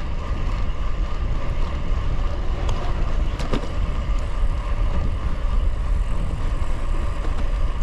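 Steady wind rush and low buffeting on the microphone of a gravel bike ridden at speed, with a faint steady rolling hum and a couple of light clicks about three seconds in.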